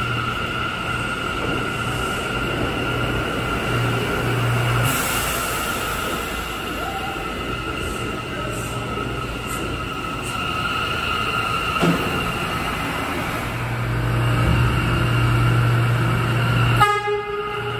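R179 subway train pulling out of an underground station, with a continuous running rumble of wheels on rail and a steady high whine. About 17 seconds in, an arriving R179 train sounds one short horn toot.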